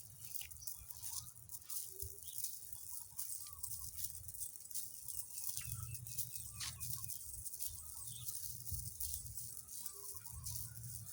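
Chickens clucking faintly now and then, over a steady high hiss and a low rumble.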